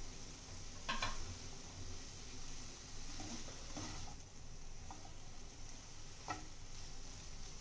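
Sliced mushrooms in onion-tomato masala sizzling in a frying pan as they are stirred with a plastic spatula, with a few short scrapes and taps of the spatula against the pan.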